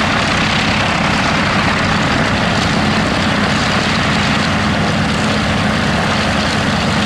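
Gloster Gladiator's Bristol Mercury nine-cylinder radial engine running steadily on the ground, propeller turning.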